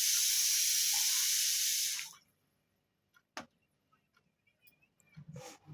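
A steady hiss lasting about two seconds, then a single sharp click.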